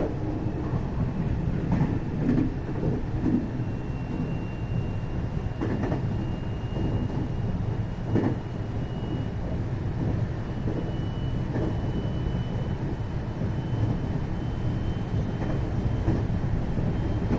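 Interior running sound of a 521-series electric multiple unit motor car under way: a steady low rumble of wheels on rail with occasional short clacks. A faint high whine runs alongside and slowly rises in pitch.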